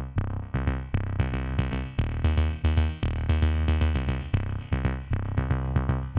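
Electronic background music: a steady drum-machine beat under synthesizer notes with a strong bass line.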